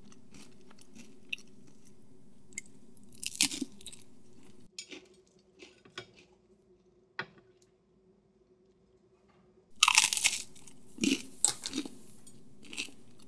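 Crisp sourdough knäckebröd (crispbread) being bitten and chewed. A few faint crunches come early, then a quiet stretch. A loud crunching bite comes about ten seconds in, followed by scattered crunchy chews.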